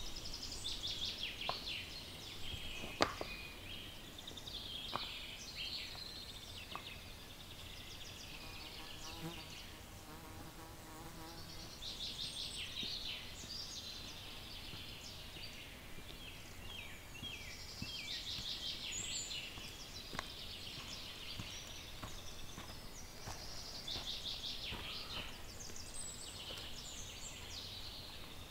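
Insects chirping in short, fast, high trills that come and go, with a fly buzzing past about ten seconds in and a few sharp clicks.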